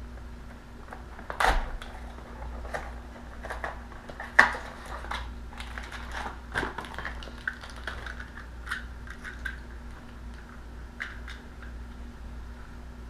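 A new dimmer switch's packaging being opened by hand: irregular crinkling and clicking, with the sharpest snaps about a second and a half and four and a half seconds in.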